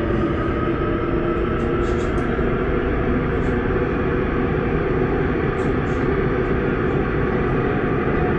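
Daejeon Metro Line 1 subway train running at speed through a tunnel, heard from inside the car: a steady rumble and roar of wheels on rail, with a faint steady hum on top.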